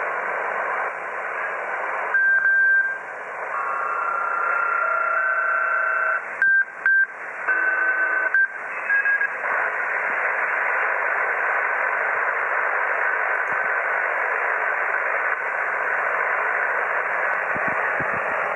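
HF ham radio receiver's audio filled with a steady white-noise hiss, interference (QRM) of unknown source. Several steady whistling tones come and go over it with a few brief dropouts in the first half, then the plain hiss carries on.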